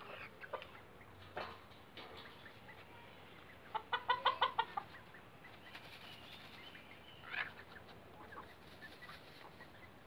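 Domestic chickens clucking while they dust-bathe in a group. A quick run of about ten clucks comes about four seconds in, and one more short call follows a few seconds later.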